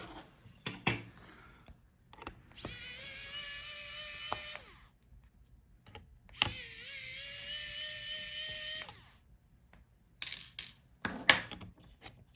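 Small electric precision screwdriver running in two spells of about two seconds each, a steady whine that rises slightly in pitch, backing out the two screws of a laptop cooling fan. Light clicks and taps of handling come before and after.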